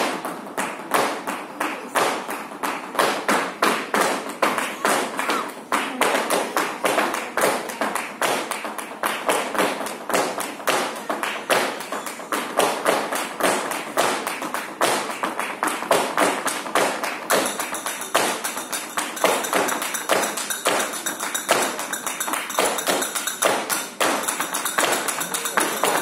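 Tap dancing: a dancer's shoes strike the stage floor in rapid, continuous runs of taps.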